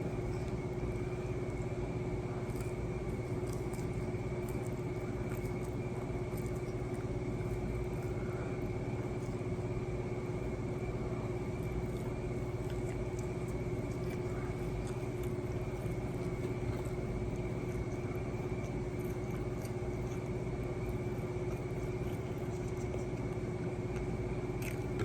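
Steady machine hum with a constant low drone and a fainter high tone, unchanging throughout, with a few faint small clicks.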